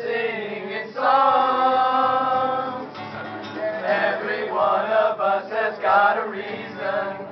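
A group of teenage boys singing together in unison to an acoustic guitar, holding one long note for about two seconds about a second in.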